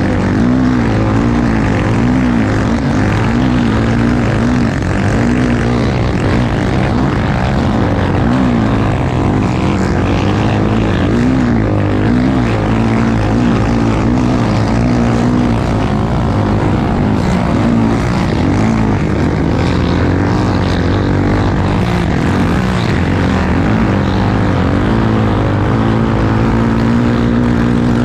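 Honda XR250 Tornado's single-cylinder four-stroke engine running hard in a race, its revs rising and falling again and again as the rider works the throttle.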